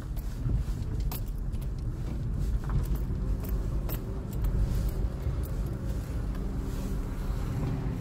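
Car engine running with a steady low rumble, heard from inside the cabin, with a few light clicks.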